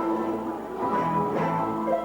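Music with plucked guitar.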